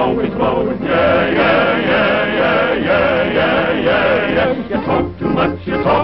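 Several male voices singing together in long, wavering held notes, a spooky choral passage in a 1930s cartoon soundtrack; it breaks into shorter choppy sounds near the end.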